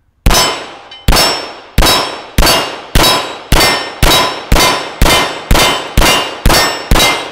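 A stainless CZ-75B 9mm pistol firing thirteen rounds in quick succession, each shot followed by the ring of a struck steel target. The pace quickens from a little under a second between shots to about two shots a second.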